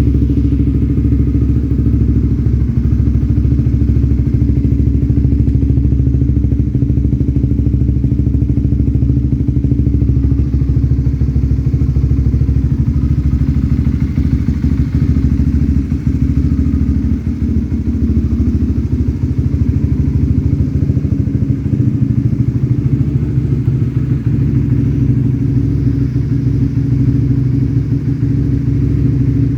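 Honda CBR150R's single-cylinder engine idling steadily while it warms up.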